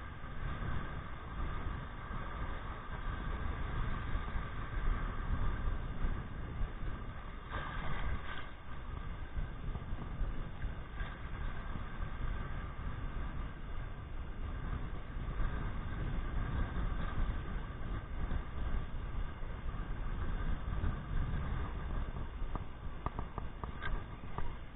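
Wind buffeting the microphone of a body-worn action camera, an uneven low rumble, over the wash of small surf waves on a shallow beach. A few short clicks near the end.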